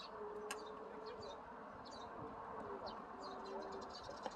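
A flying insect buzzing close by: a steady hum whose pitch wavers and dips slightly. Small birds chirp in the background.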